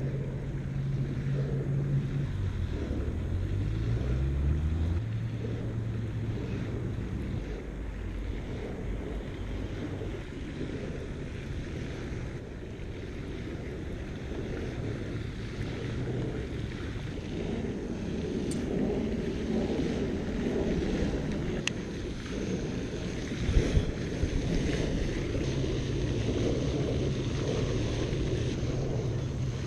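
Wind buffeting an action camera's microphone, with a low engine note that drops and steps back up in pitch in the first few seconds and holds steady again near the end. A few sharp clicks and a brief thump come about two-thirds of the way through.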